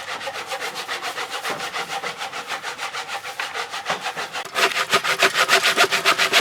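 Hand saw cutting through a wooden fence board in quick, even back-and-forth strokes, getting louder about four and a half seconds in.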